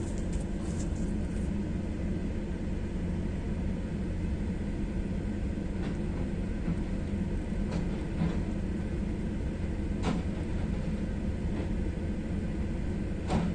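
Steady low engine rumble heard from inside a car's cabin, with a few faint knocks spread through it.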